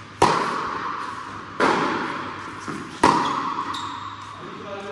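Three sharp tennis-ball strikes off a Wilson Pro Staff 97 v13 racket, about a second and a half apart, each ringing on in the echo of a large indoor court hall.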